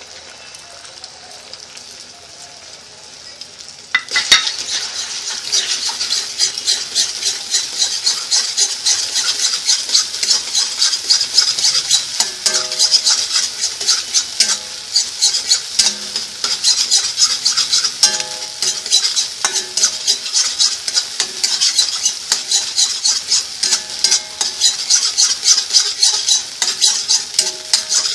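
Beaten egg frying in oil in a kadhai, a faint sizzle at first. About four seconds in, a spatula starts scraping and chopping against the pan to scramble the egg: rapid scrapes over a loud sizzle.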